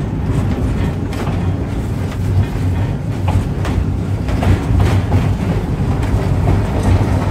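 Electric streetcar running along the track: a steady low rumble with scattered clicks and knocks of the wheels over the rails.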